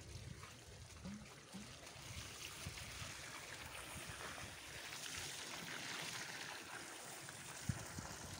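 Water pouring steadily from a plastic watering can onto the soil and splashing into the muddy puddle forming at the base of a newly planted tree, to water it in.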